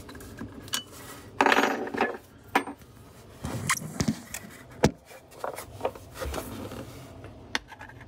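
Steel Jam-Buster wrench tapping, clicking and scraping against the metal bottom plate of a Badger garbage disposal as it is worked into the socket at the centre. Irregular metallic taps, with a longer scrape about a second and a half in.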